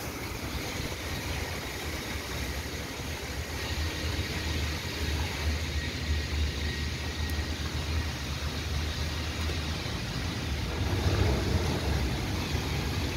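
Wind buffeting the phone's microphone: a flickering low rumble over a steady hiss. In the first few seconds the hiss is brighter, with the splashing of fountain jets in a pool.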